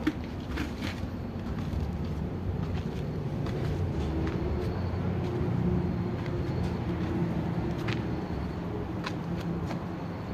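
Steady low mechanical rumble with a faint hum, and a few light ticks scattered through it.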